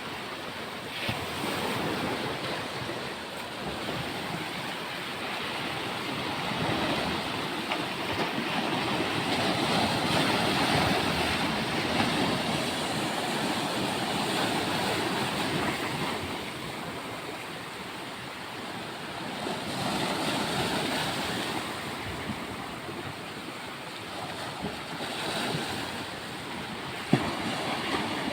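Sea surf washing onto the shore, the rush of water swelling and ebbing every several seconds. A single sharp click near the end.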